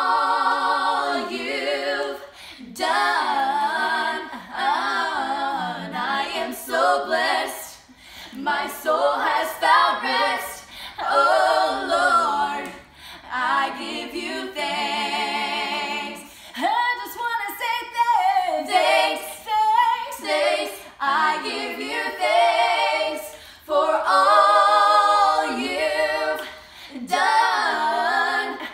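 A woman and two girls singing a song together without accompaniment, in phrases a few seconds long with short breaks between them.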